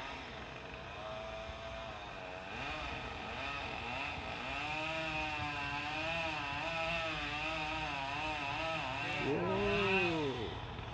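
Chainsaw running up in the tree, its pitch wavering up and down as it cuts, with a rev that rises and falls near the end.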